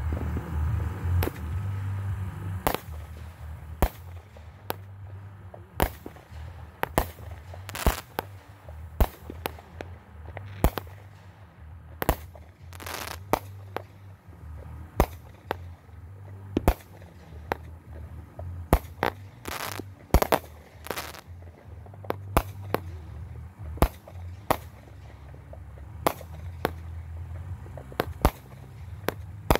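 Fireworks finale barrage: aerial shells bursting in the sky, dozens of sharp bangs in quick, irregular succession, some trailing off in a brief crackle or echo.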